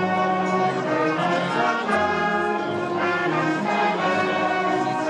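Brass band playing a slow piece of held chords from trumpets and trombones, the chords changing about once a second.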